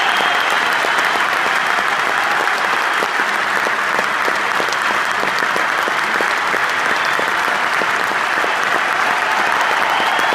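Large arena crowd applauding, a dense, even clapping that holds steady without letting up.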